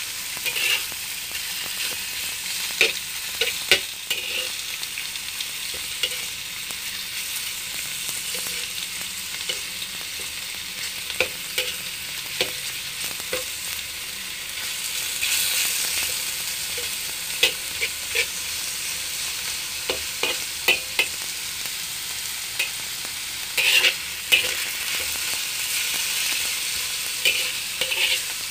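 Beef cubes and minced garlic sizzling in a hot wok while being stir-fried, with a slotted metal spatula scraping and clinking against the wok at irregular moments.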